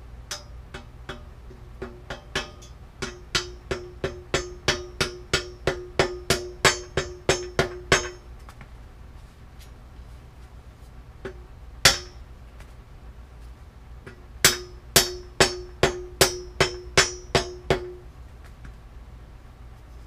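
Hammer tapping a part into a steel bicycle frame, with the frame ringing after each blow. About twenty taps come faster and harder over the first eight seconds, then one hard lone blow, then about a dozen more taps.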